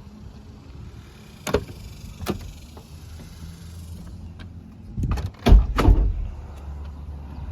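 Two sharp latch clicks, then a cluster of heavy thumps about five to six seconds in: the door of a 1990 Chevrolet pickup being opened and shut.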